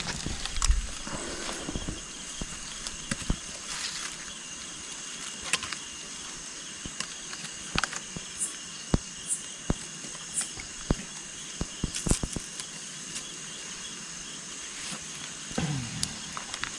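Night insects chirring steadily in several high tones, with scattered sharp clicks and crackles, and a brief rustle near the end.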